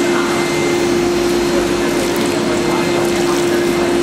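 Tap water running from a hose and splashing over a hand and the rollers inside a CTP plate processor's developer section as it is rinsed out, with a steady machine hum underneath.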